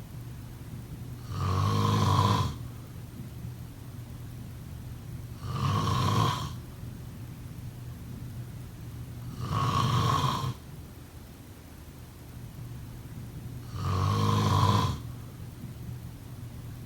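A person snoring: four snores about four seconds apart, each about a second long, with quieter stretches between them.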